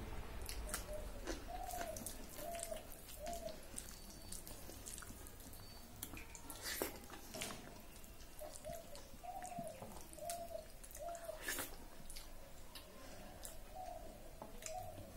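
Close-up eating by hand: soft wet clicks and smacks of mouth and fingers working soft rice. Behind them a bird calls in runs of four or five short rising-and-falling notes, three times.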